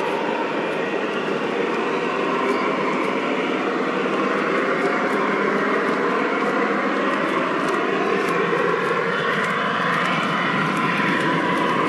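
Model train running along its track: a steady rolling rumble with motor whine, several faint pitches gliding up and down in the second half.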